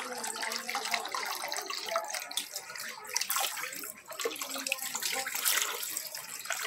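Water sloshing and splashing in a plastic washbasin as a toddler sits and moves about in it, handling a garden hose.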